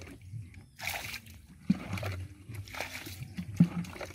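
Small taki (spotted snakehead) fish thrashing in shallow muddy water, splashing in four short bursts about a second apart, two of them with a sharp slap.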